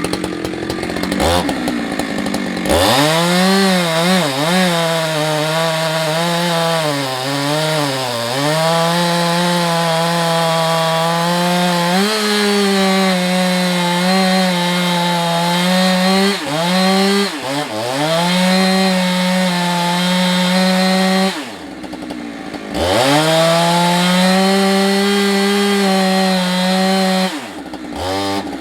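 Husqvarna 365 two-stroke chainsaw cutting through a large log: after a couple of seconds at a low idle it revs up to full throttle, its pitch sagging and recovering repeatedly as the chain bites into the wood. The throttle is let off about two-thirds of the way through and the saw drops toward idle for about a second before revving back into the cut, then drops off again near the end.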